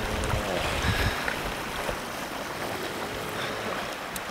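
Steady outdoor wash of wind and sea, with low gusts of wind buffeting the microphone in the first second.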